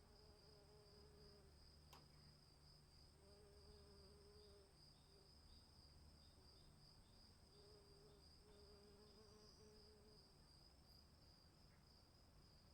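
Crickets trilling steadily and faintly, with a quick series of short chirps partway through. A single faint click comes about two seconds in.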